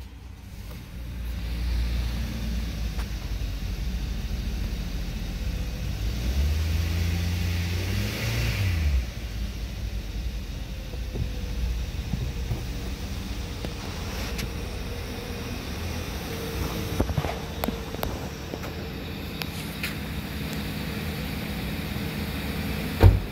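2015 Kia Sportage's 2.4-litre four-cylinder engine starting and idling, revved once for a couple of seconds about a quarter of the way in, then settling back to a steady idle. A single sharp thump near the end.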